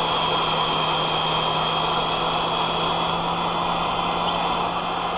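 Drill press running steadily at a lowered speed with a steady hum, its Walter high-speed-steel split-point twist bit cutting through a thick stainless steel plate.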